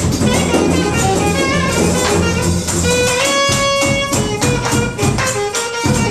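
Live jazz quartet playing: a reed player and a trombone hold long notes and lines over upright double bass and a drum kit with busy cymbal work.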